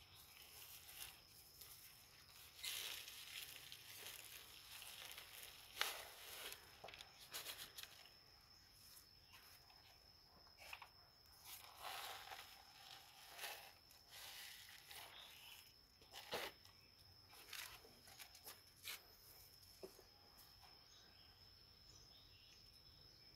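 Faint rustling and crumbling of potting soil under gloved hands as a plant is eased out of its pot and pressed into loose soil, with scattered small clicks and scrapes. A thin steady high tone sits underneath.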